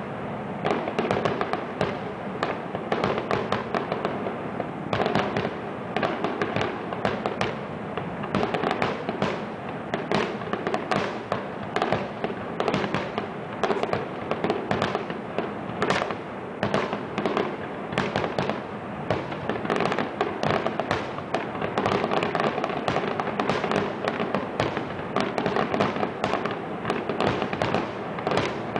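Fireworks display: aerial shells bursting in a dense, rapid string of bangs and crackles, several reports a second.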